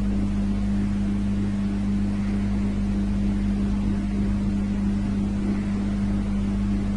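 A steady low machine hum with an even hiss over it, unchanging throughout.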